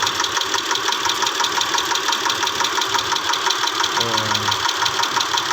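Mitsubishi 6G74 V6 engine idling with a fast, even ticking knock from the top end, which the mechanic suspects is a stuck valve lifter starved of oil by old, thickened engine oil.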